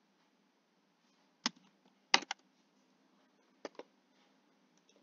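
Computer keyboard keys pressed in a few scattered keystrokes: one about a second and a half in, a quick run of three just after two seconds, and a pair near four seconds.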